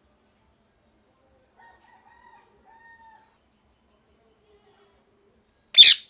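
Rose-ringed parakeet (Indian ringneck) letting out one loud, harsh screech near the end.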